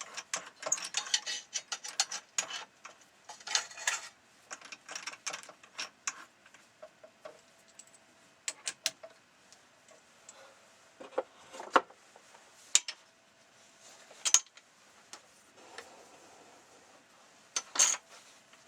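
Irregular metallic clinks, rattles and scrapes of steel slide parts and tools being handled, with clusters of rattling early and a few separate sharp metal knocks later on.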